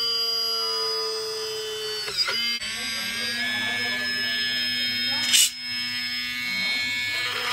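Homemade drill's brushless DC motor running at high speed with a steady whine, its pitch sagging a little over the first two seconds. After a break about two seconds in it runs steadily again while drilling into aluminium channel, with a brief harsh burst a little after five seconds.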